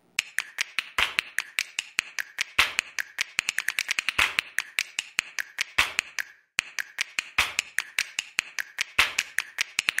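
A quick run of sharp clicks and taps, several a second and unevenly spaced, from the end-screen sound effect. It breaks off briefly about six and a half seconds in, then resumes.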